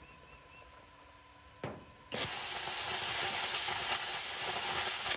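Plasma cutter cutting a hole through steel sheet. After a single click, the arc starts about two seconds in with a loud, steady hissing rush and a high whine, and cuts off abruptly at the end.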